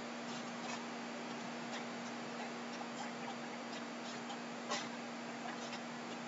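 Faint, irregular small clicks over a steady low electrical hum and hiss; the most distinct click comes about three-quarters of the way through.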